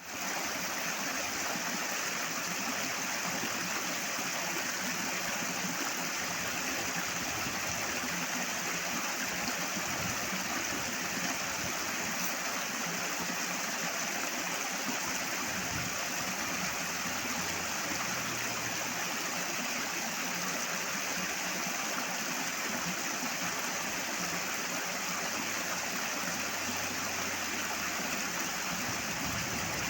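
Flowing water rushing steadily, a stream or small waterfall with a full, unbroken splashing hiss.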